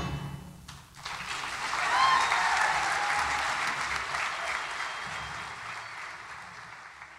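A wind band's final chord dies away, and about a second in an audience's applause breaks out, swells, then slowly thins out.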